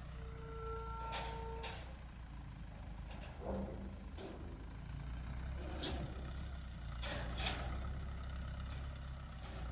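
Concrete mixer's engine running with a steady low drone, with several sharp metallic clanks along the way and a brief held tone about a quarter second in.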